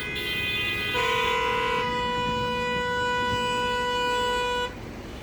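A vehicle horn sounding one long, steady note for nearly four seconds, starting about a second in and cutting off near the end, over a low engine rumble.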